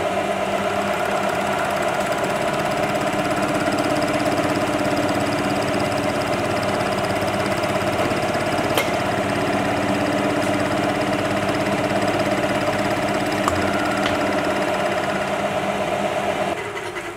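Milling machine running steadily with an even hum while a hand-ground single-point cutter takes a full-depth pass into a plastic gear blank, cutting one tooth gap. The machine stops near the end.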